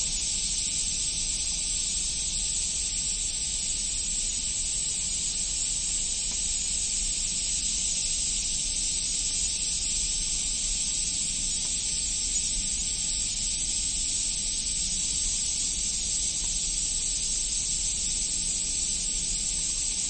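Water at a spring pool making a steady, even hiss, with a faint low rumble beneath.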